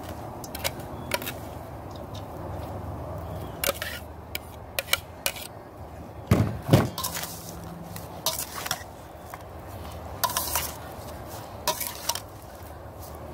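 A long metal spoon clinking and scraping against a glass food-processor bowl and a stainless steel mixing bowl while scooping wet chopped seasoning onto fish and turning it. Scattered clinks and scrapes, the loudest about halfway through and again about three-quarters in.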